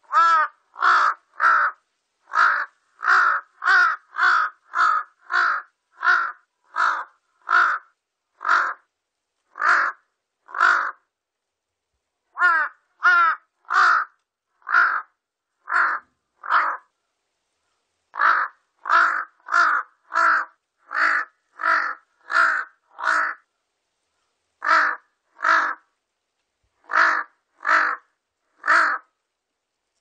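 Large-billed crow cawing: a long series of short caws, about two a second, in runs separated by brief pauses.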